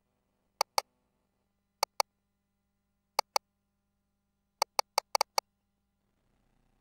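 Sharp clicks from an ultrasound machine's console controls as measurement calipers are set and a label is entered: three pairs of clicks about a second apart, then a quick run of six clicks about two-thirds of the way through, over a faint low hum.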